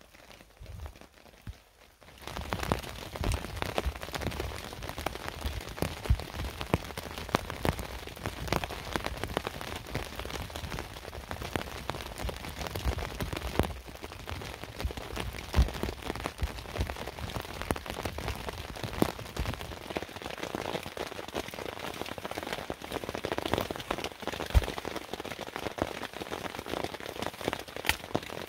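Steady rain, with many separate drops striking close by. It starts abruptly about two seconds in, after a quieter start.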